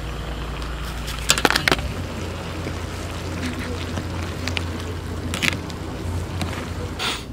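Ramyeon and tteokbokki simmering in an aluminium foil tray on a portable gas stove, with a steady low rumble. Metal chopsticks click and scrape against the foil tray: a quick cluster of clicks about a second and a half in, another click around five and a half seconds and one near the end.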